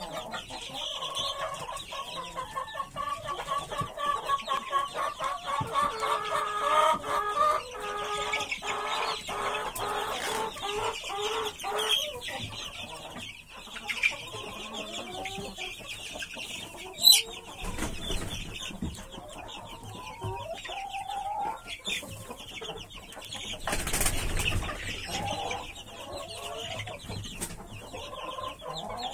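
A brooder full of four-week-old chicks peeping and cheeping continuously, many high calls overlapping, with a run of lower repeated calls through the first twelve seconds. A single sharp click about seventeen seconds in.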